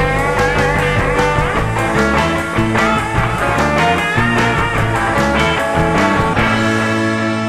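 Rock music with guitar and a steady beat, settling into a long held chord near the end.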